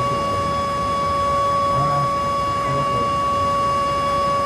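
Dam warning siren sounding one steady, held tone with a clear note and its overtones, level throughout, with a voice faintly audible under it now and then.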